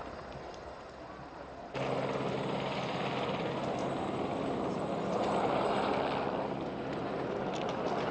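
Steady mechanical drone with a low hum, which gets abruptly louder about two seconds in and then holds steady.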